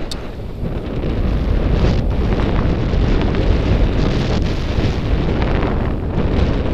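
Wind buffeting the microphone during a fast downhill run on snow: a loud, low rushing rumble that builds over the first second and then holds steady.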